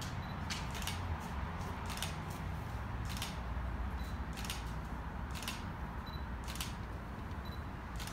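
DSLR camera shutter firing repeatedly, short sharp clicks about once a second, some in quick pairs, over a low steady rumble.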